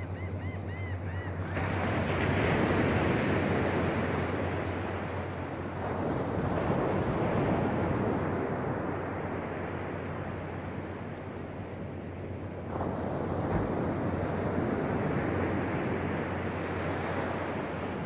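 Small waves breaking and washing up a shell-and-pebble beach, swelling three times, a few seconds apart, over a steady low hum. A few faint bird calls at the very start.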